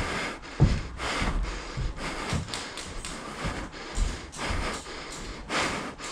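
A player moving on foot in airsoft gear: irregular footfalls and thuds with the rustle of clothing and kit against a body-worn camera.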